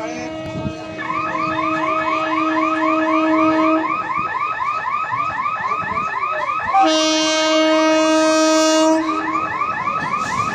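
Electronic warning signal of quick rising chirps, about four a second, with a long steady horn note that stops about four seconds in. Then a shriller, louder horn blast from about seven to nine seconds from an approaching Indian Railways EMU local train.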